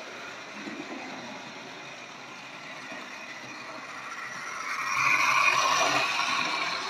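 Tri-ang Hornby Flying Scotsman OO-gauge model locomotive running on the track, its electric motor whirring and wheels clattering over the rails. The sound grows louder about four and a half seconds in as the train passes close by, then eases off.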